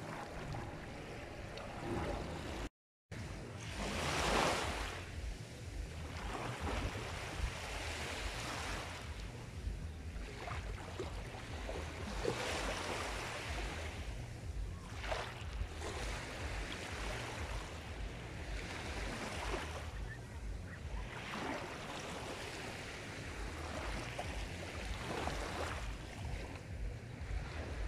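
Sea surf: waves rushing in a steady wash that swells and fades every few seconds, with a brief cut to silence about three seconds in.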